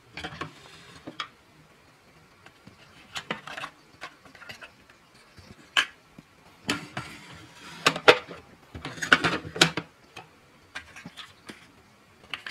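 Light clicks, taps and knocks of small plastic and cardboard toy pieces being handled and set down on a wooden table, with the plastic door of a toy fridge being shut. The knocks are scattered, with a busier run in the second half.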